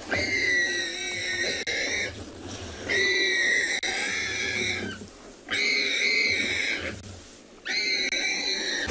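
A warthog squealing in distress while lionesses feed on it alive: four long, high-pitched squeals about two seconds apart, each sagging slightly in pitch at its end.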